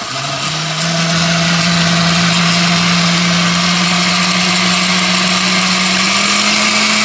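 Countertop blender with a glass jar puréeing a chile, tomato and spice sauce. The motor comes up to speed in the first second, then runs steadily, and its pitch steps up a little near the end.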